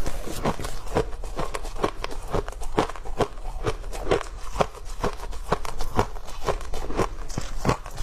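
A person chewing a mouthful of fluffy freezer frost: a quick, steady run of crisp crunches, several a second.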